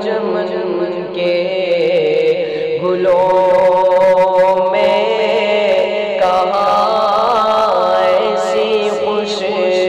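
A man singing an Urdu naat, a devotional song in praise of the Prophet, in a chanting, ornamented style over a steady background drone.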